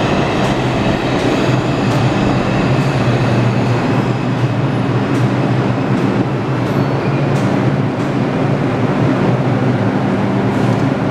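New York City subway R142 train arriving at a station platform: a steady rumble of steel wheels on rail with a low hum, and scattered clicks as the cars roll past.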